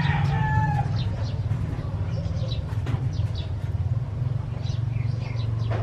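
A steady low hum, like a running engine, with short high chirps scattered over it from a baby sparrow being fed.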